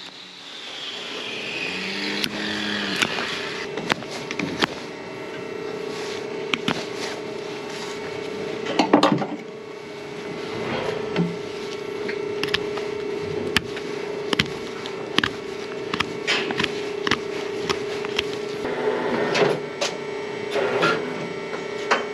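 Hoof knife cutting and scraping the horn around a cow's heel, a string of short scrapes and clicks over a steady machine hum. The knife is cleaning out the cracks around a heel infected with digital dermatitis, to check that the infection hasn't undermined the hoof.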